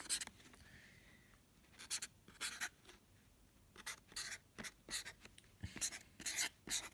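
Sharpie marker being drawn across a surface in a series of short strokes, separated by brief pauses.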